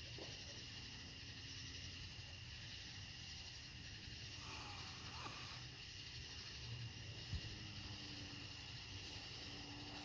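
Faint night background with a steady high tone, and one short sharp pop about seven seconds in, a distant firework.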